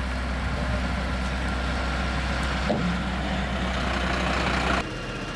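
Fire engine's diesel engine running with a steady low rumble, mixed with the rushing noise of a large open fire. The sound shifts abruptly a little past halfway and drops in level near the end.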